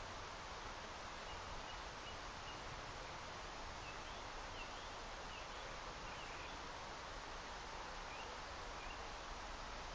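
Steady outdoor background hiss with faint, short high-pitched bird chirps scattered through it.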